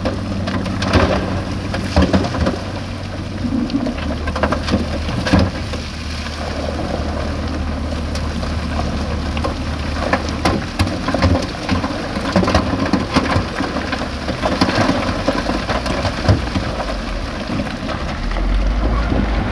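Heavy diesel construction machinery running with a steady low drone while big stones crash and clatter as they are dumped and pushed, giving many sharp knocks throughout. The engine note shifts about four seconds in, and a deeper drone comes in near the end.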